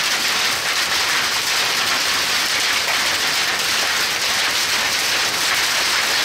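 Hail mixed with heavy rain pelting pavement, a steady dense hiss with no breaks.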